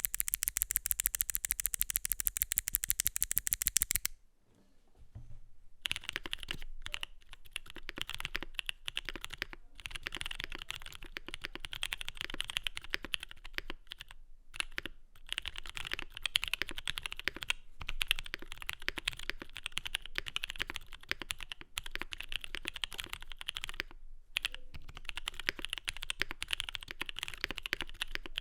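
Typing on a KBDfans D84 v2 mechanical keyboard with lubed, filmed SP Star Purple switches, a polycarbonate plate and GMK keycaps. For about the first four seconds the keystrokes come in a fast, even run; after a short lull, ordinary typing goes on with brief pauses.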